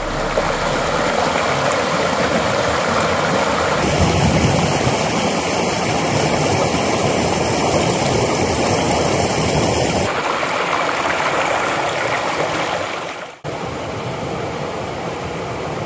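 Rushing river water tumbling over rock ledges and small cascades, a loud, steady rush that changes abruptly about four, ten and thirteen seconds in, and is softer after the last change.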